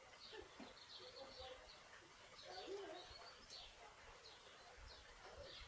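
Faint steady rain hiss with small birds chirping here and there.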